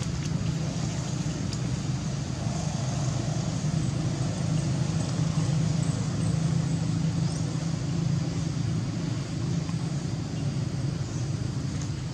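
Steady low rumble of outdoor background noise that does not rise or fall, like distant traffic or engine hum, with no distinct events.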